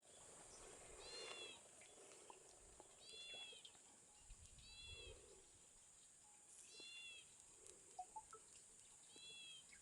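A bird giving a faint, short, arched mewing call five times, about one call every two seconds, over a steady high hiss.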